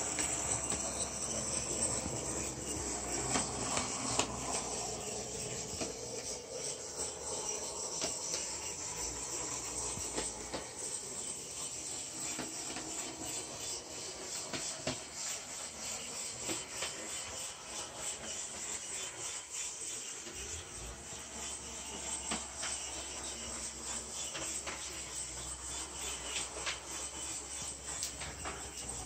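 HO scale model streetcar running on its track: a small electric motor whirring with the wheels rubbing and clicking along the rails, many faint clicks over a steady hiss.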